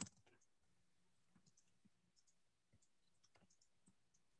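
Near silence, with a few very faint, scattered clicks.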